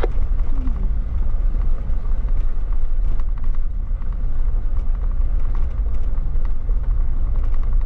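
Jeep driving on a gravel road: a steady low rumble of engine and tyres, with scattered light ticks and rattles over the rough surface.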